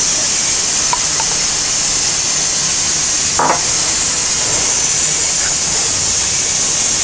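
A steady high hiss, with a single short clink about three and a half seconds in.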